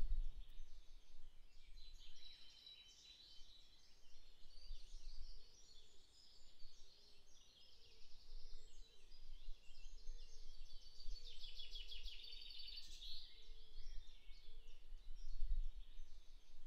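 Woodland birdsong: several small birds chirping and trilling, with a lower repeated call in the middle stretch, over a low rumble that swells near the end.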